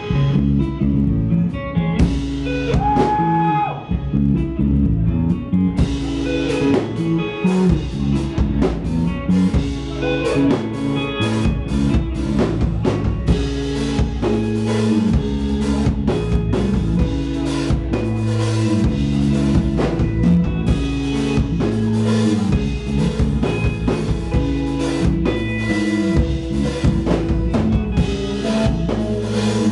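Live rock band playing an instrumental passage: electric guitar over a drum kit, with steady drum strikes and a held guitar note a few seconds in.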